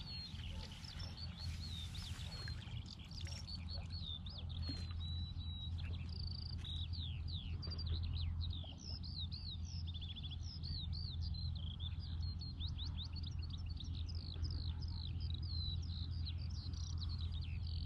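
Wild birds singing, a steady stream of quick high chirps and trills, over a continuous low rumble.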